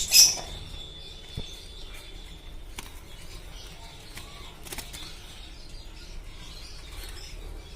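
Budgerigars fluttering their wings, with a few faint chirps and light knocks.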